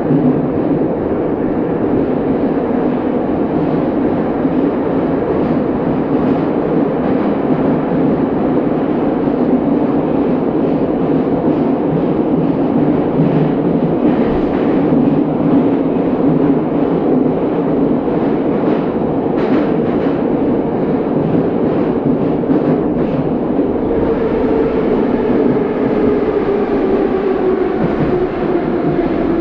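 Moscow Metro train running through the tunnel, heard inside the carriage as a steady loud rumble of wheels on rails, with a few sharp clicks midway. Near the end a whine falls in pitch as the train slows on its approach to the station.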